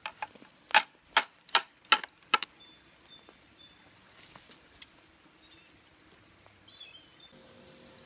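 A pond-dipping net's frame knocked about six times against the rim of a plastic bucket, shaking the caught river invertebrates out, in sharp knocks over the first two and a half seconds. Faint bird chirps follow.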